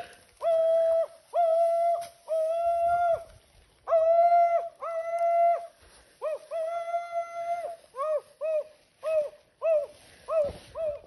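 A man imitating a hunting dog's baying with his voice to flush a wild boar. First come long, level howls of about a second each, then from about six seconds in a quick run of short yelps, about three a second.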